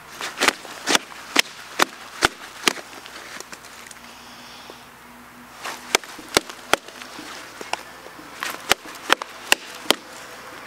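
Repeated sharp chopping blows on wood, about two a second, in three runs with short pauses between.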